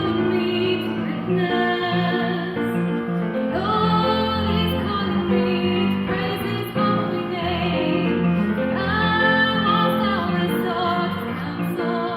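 A choir singing, led by high voices, over steady held low notes.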